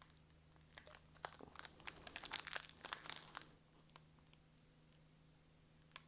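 Foil trading-card pack wrapper crinkling and tearing as it is worked open by hand, in a run of crackly bursts that stops about three and a half seconds in.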